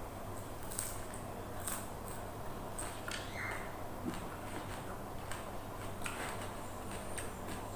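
Close-miked crunching and chewing of raw water spinach dipped in sambal: irregular crisp clicks and crackles as the stems are bitten and chewed.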